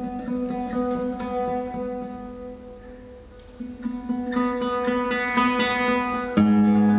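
Duo of nylon-string classical guitars playing a piece together, plucked notes ringing over a held bass line. It softens around the middle, then grows fuller, with a sudden louder entry of low bass notes near the end.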